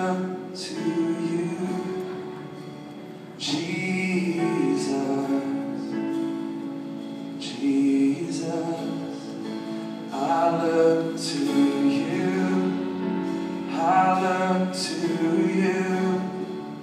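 Live worship music: held chords with a voice singing a worship song in phrases every few seconds.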